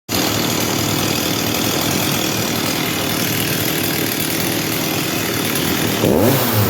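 Stihl MS 260 two-stroke chainsaw idling steadily, then revved up about six seconds in. The saw is running again after a rebuild with a new piston, gaskets and filters.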